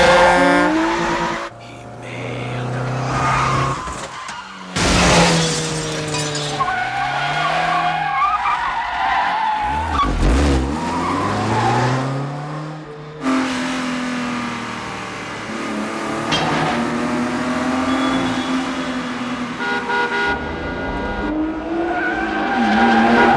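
Car-chase mix of several hard-driven car engines revving, their pitch climbing and dropping through gear changes. Tyres squeal through the turns.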